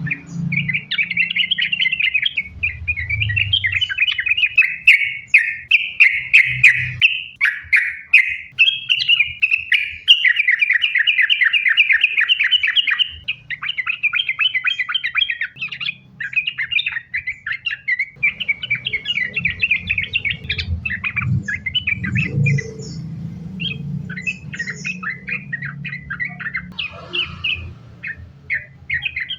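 Yellow-vented bulbul (trucukan) singing a long, rapid, chattering song, strings of quick notes running on with hardly a break, the continuous 'sambung ropel' delivery bird keepers call gacor. A low rumble runs beneath, heavier in the second half.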